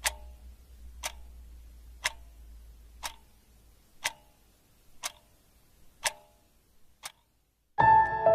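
A clock ticking once a second, eight sharp ticks with the last one fainter. Music comes in just before the end.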